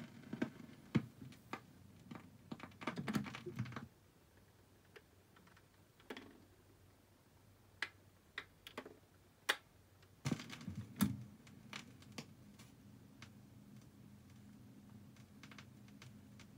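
BSR automatic record changer clicking and clunking through its change cycle as the tonearm lifts off and swings back to its rest. About ten seconds in there is another burst of mechanical clatter, followed by a low steady hum.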